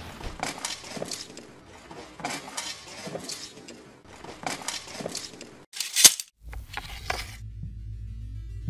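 Footsteps of an armoured samurai at a steady walking pace, each step with a metallic clink and rattle of armour. About six seconds in comes a sharp, loud crash, and then a low, steady music drone sets in.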